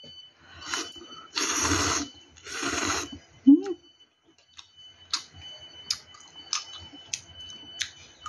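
Ramyeon noodles slurped in three noisy pulls in the first three seconds. Then chewing with sharp wet mouth clicks about every two-thirds of a second.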